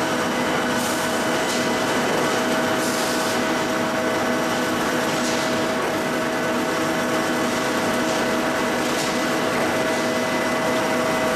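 Machinery of a cold-rolled ribbed rebar production line running: a steady mechanical hum with a constant whine over it, and a few brief, faint high hisses.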